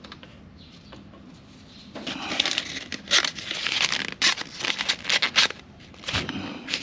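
Rustling and crinkling handling noise with several sharp clicks, starting about two seconds in, pausing, then a short burst again near the end.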